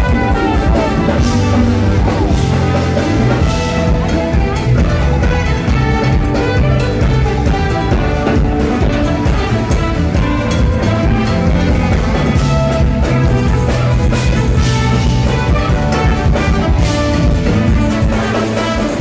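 Live jazz-fusion band playing loud: drums, bass and electric guitars, with trumpet and saxophone on top. Recorded right next to the stage, so the sound is rough.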